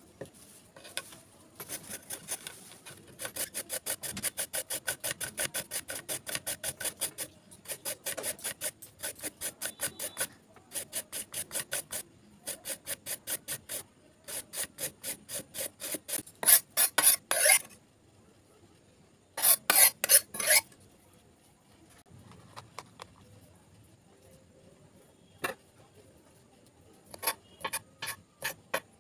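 A carrot being grated on a flat stainless-steel hand grater: fast, even rasping strokes in runs of a few seconds with short pauses. Near the end, a few sharp knife strokes on the worktop as prawns are cut.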